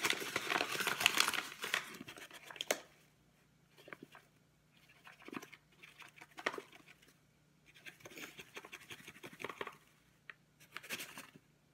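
A flour bag crinkling loudly as it is handled and opened for about two seconds. Then flour is shaken out of the bag into a plastic mixing bowl in soft, scattered spurts of rustling and pattering.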